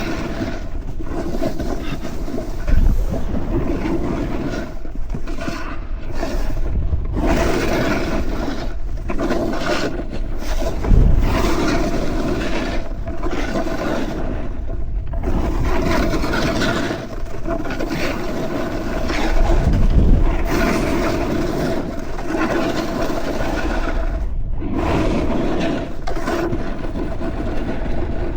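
Snowboard sliding and carving on snow, the edges scraping in a steady rush that swells and drops off briefly every second or two as the board turns.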